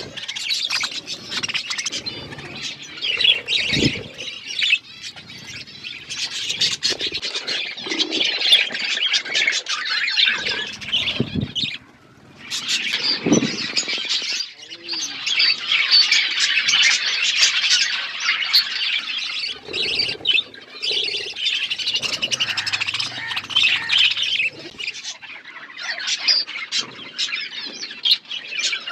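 A flock of budgerigars chattering and squawking without a break, with a short lull about twelve seconds in.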